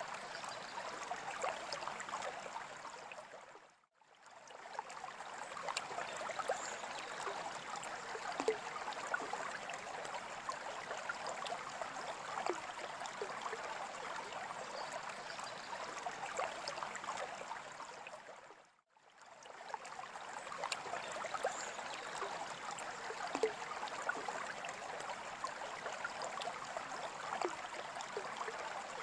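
Water in a freshwater aquarium trickling and gurgling steadily, with small splashes and drips. It fades out briefly twice, about 4 seconds in and near the middle, then comes back.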